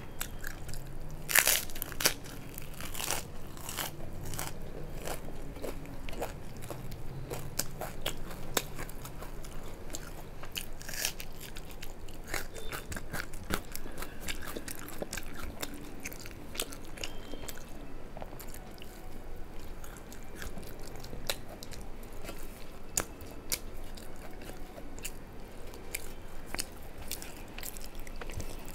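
Close-miked chewing and crunchy biting as a person eats food by hand, with a steady run of sharp crunching clicks, the loudest about a second and two seconds in.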